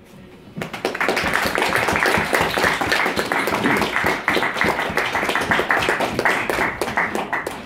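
Audience applauding. The clapping starts about half a second in, builds quickly to a steady, loud patter of many hands, and eases off slightly near the end.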